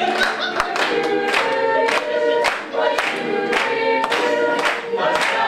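Group of voices singing a song together in chorus, with sharp beats about twice a second keeping time.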